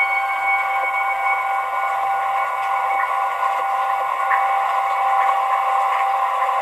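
Ambient bell music: the tones of bells struck just before ring on and slowly die away over a steady hiss-like wash, the higher tones fading first, with no new strike.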